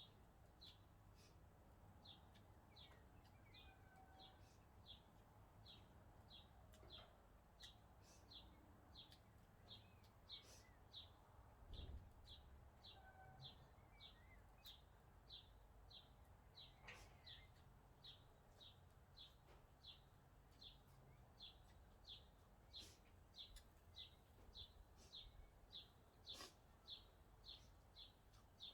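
Faint, evenly repeated short high chirps, about one and a half a second, from a calling animal, over quiet outdoor background noise. A single soft thump about twelve seconds in.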